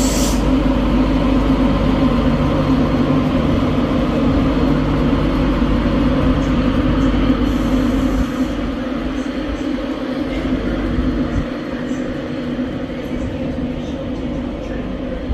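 Class 91 electric locomotive departing, propelling its coaches away: a steady electric drone with a deep rumble underneath. The rumble drops away about eight seconds in and the whole sound fades slowly as the train recedes.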